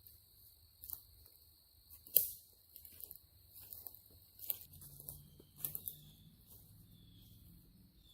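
Steady high chirring of insects in the woods, with a few sharp ticks and snaps scattered through, the loudest about two seconds in.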